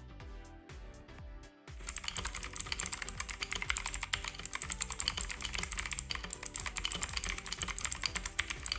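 Fast typing on a Gamen Titan V mechanical keyboard with clicky OTEMU Blue switches and PBT keycaps, a dense run of rapid key clicks starting about two seconds in.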